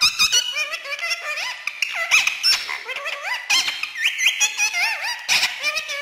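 Indian ringneck parakeet chattering: a fast, unbroken stream of short, high, squeaky notes that slide up and down in pitch, with only brief pauses.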